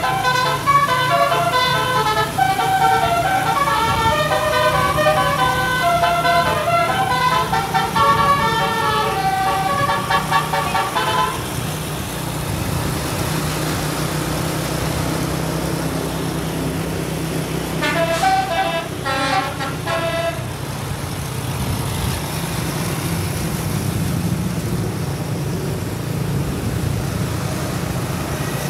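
Tour bus telolet horn playing a fast melody of many changing notes for about eleven seconds, then stopping, with a second short burst of notes about eighteen seconds in. Under it a steady low vehicle engine hum runs on.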